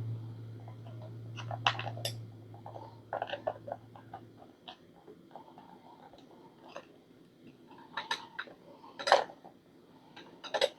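Metal parts of a bike repair stand clinking and knocking as it is put together, in scattered taps, with a louder knock about nine seconds in. A low steady hum runs under the first half and stops.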